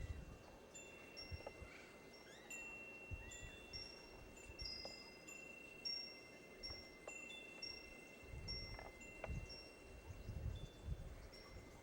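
Faint wind chimes ringing: scattered high tones at several pitches that ring on and overlap, with a few soft low thumps.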